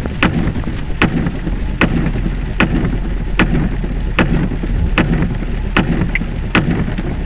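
Rushing floodwater with a steady rumble, and a sharp knock repeating evenly a little faster than once a second.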